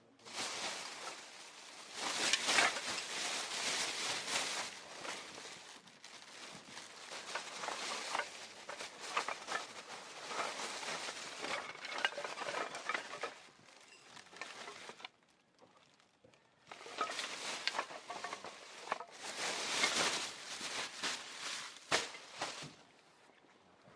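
Rustling and crackling with many small clicks, in two long stretches split by a short pause about halfway through, and a sharp click near the end.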